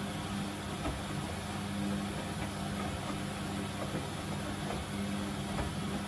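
Samsung front-loading washing machine tumbling a load of synthetics in its prewash: a steady drum-motor hum over the even noise of the turning drum, with a couple of soft thuds from laundry dropping.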